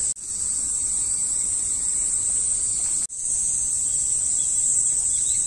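Steady, high-pitched shrill of summer insects, cutting out abruptly for a moment twice.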